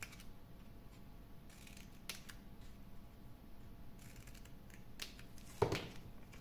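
Scissors cutting through paper pattern pieces: a few quiet snips spread out, then a louder knock near the end.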